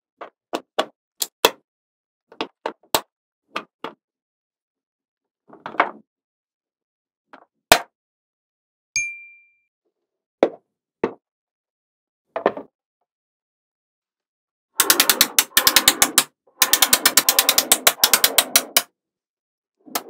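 Small magnetic balls clicking and snapping together as pieces and window frames are set into a magnetic-ball model: single sharp clicks spaced out over the first half, then about four seconds of rapid, dense clattering clicks as strings of balls snap into rows near the end.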